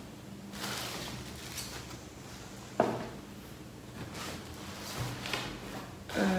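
Cardboard packaging being handled, rustling and scraping, with one sharp knock about three seconds in.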